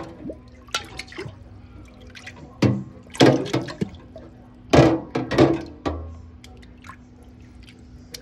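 Dishes banged around in a kitchen sink, donging and clattering. Two bursts of loud knocks come about two and a half seconds in and about five seconds in, between scattered small clinks.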